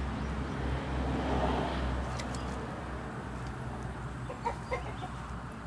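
A chicken clucking twice, about four and a half seconds in, over a steady low outdoor rumble. A few faint clicks near the middle as a bamboo eel trap tube is handled.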